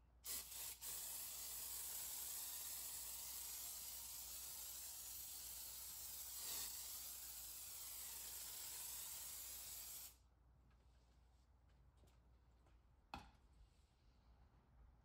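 Kwazar Venus Super Foamer pump-up pressure sprayer hissing steadily as it sprays foam, for about ten seconds, then cutting off sharply. A faint click comes a few seconds later.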